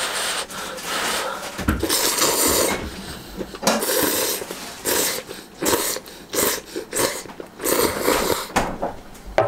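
A person blowing on hot instant ramen noodles and slurping them up from chopsticks, in a string of short, airy bursts.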